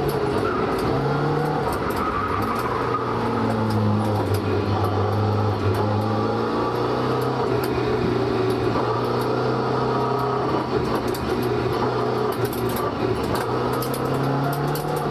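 Toyota AE85 Sprinter Trueno's 1.5-litre four-cylinder engine running through a rusted, holed Trust muffler: the engine note drops at the start, holds steady through the middle and climbs again near the end, with fine rapid clicking over it.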